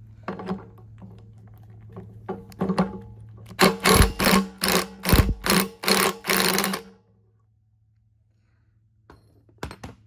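Ryobi impact wrench hammering in short trigger bursts on a socket, undoing the seized starter clutch (starter ratchet) from a Briggs & Stratton lawn engine's crankshaft. A few brief bursts come first, then a run of about eight louder bursts from about four seconds in, stopping about seven seconds in. A couple of sharp clicks follow near the end.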